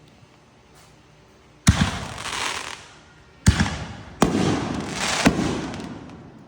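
Fireworks going off: four sharp bangs, the first a little under two seconds in and the rest over the next few seconds, each followed by a tail that fades over about a second.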